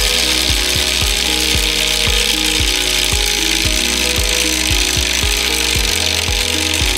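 3D-printed plastic clockwork spring motor running down after winding: its pallet escapement chatters rapidly against the escape wheel in a steady, dense rasping clatter as the pallet checks the big spiral torsion spring's unwinding.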